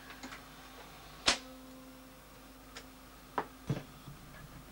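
A sharp mechanical click about a second in, then two lighter clicks near the end, over a faint steady hum.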